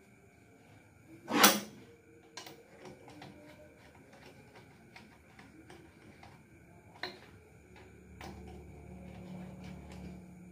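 Metal engine parts and tools being handled during bottom-end assembly: one loud short clatter or scrape about a second and a half in, then a few lighter clicks and knocks. A faint low hum comes in near the end.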